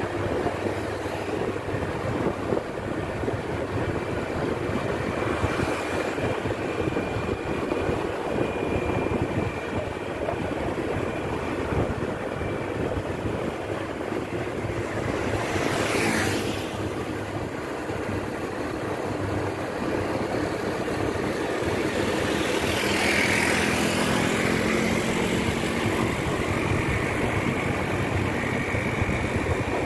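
Steady road and wind noise from a moving vehicle in traffic. A vehicle passes about halfway through, and another engine swells and passes a few seconds later.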